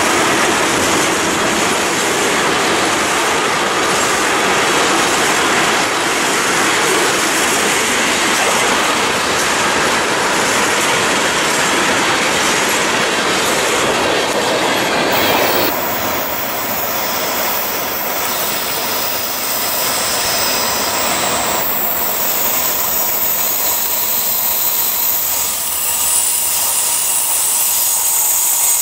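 Freight cars of a Norfolk Southern train rolling past at close range, the wheels clacking over the rail joints and squealing. The sound drops about halfway through as the end of the train goes by. Near the end, another train is heard approaching.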